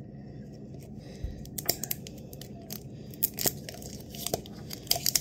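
Clear plastic wrap being peeled and torn off a hard plastic ornament-shaped capsule: scattered crinkles and crackles that grow denser near the end.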